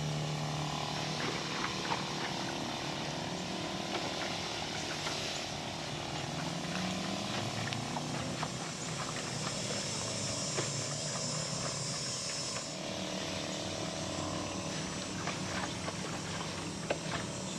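Battery-powered backpack sprayer's electric pump running steadily while repellent sprays from the wand, a hum with a hiss over it.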